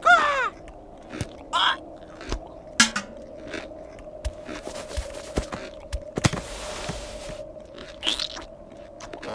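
Sparse cartoon sound effects: a short falling squeak at the start, then scattered small clicks, knocks and scrapes over a faint steady hum, with a brief hiss about six seconds in.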